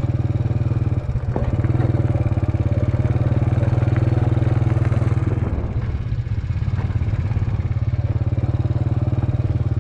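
Small motorcycle engine running steadily as it is ridden, with a sharp knock about a second in. The engine note drops and softens around six seconds in, then steadies again.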